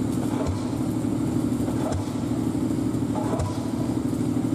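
Diesel engines of heavy earthmoving machinery running steadily, with faint regular knocks about every one and a half seconds.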